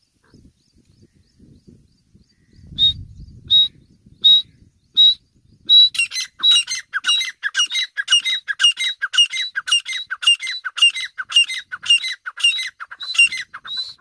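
Grey francolin calling: a few single high notes about a second apart, then from about six seconds in a fast, even run of repeated ringing phrases, about two a second.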